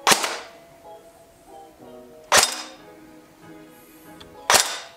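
G&G GKM airsoft electric gun (AKM replica) firing single shots, three sharp cracks about two seconds apart, over background music.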